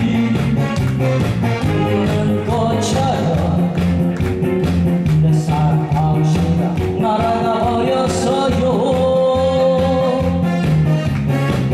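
A man singing a song over a loud, upbeat backing track with a steady beat.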